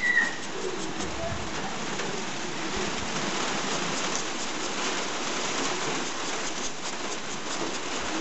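Steady rain falling on the roof overhead, an even hiss of drops with no breaks.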